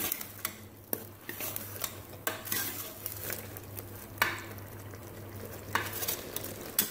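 A spoon stirring and scraping boiled black chickpeas in masala in an aluminium pressure cooker, with irregular knocks against the pot about once a second over a faint sizzle. This is the bhuna stage: the cooked chickpeas are being fried dry in oil after the cooking water has evaporated.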